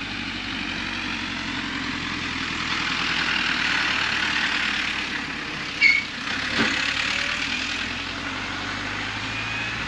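Farm tractor engine running as the tractor drives past, growing louder toward the middle and then slowly fading. A brief sharp knock about six seconds in.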